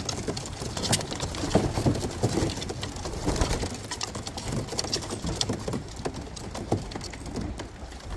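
Racing pigeons landing and moving about at the loft trap: irregular wing flaps and taps of feet and bodies on the landing board.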